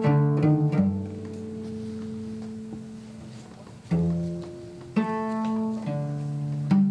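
Solo cello playing a slow passage of separate notes that start sharply and ring away, some plucked pizzicato, with a long held note in the middle.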